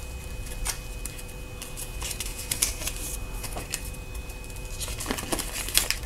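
Folded paper owner's manual being unfolded by hand: irregular rustling and crinkling of the paper, busiest near the end.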